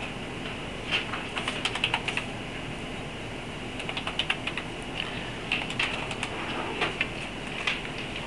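Light, irregular clicks and taps, some bunched in quick clusters, from a signer's hands and bracelets moving and touching, over a steady hiss.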